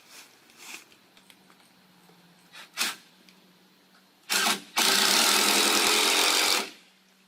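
Power drill driving a 3-inch screw into a wooden 4x4 deck post: a short blip of the trigger, then a steady run of about two seconds as the screw goes in.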